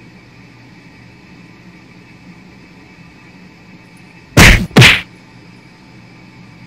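Two loud thumps less than half a second apart, about four and a half seconds in: a cat swatting at a dog's head right by the microphone. A faint steady hum runs under it.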